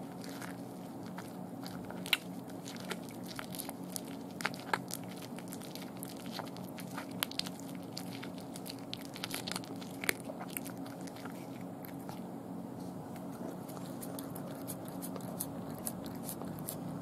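A cat chewing a raw day-old chick, crunching through its small bones: sharp, irregular cracks and crunches that thin out over the last few seconds.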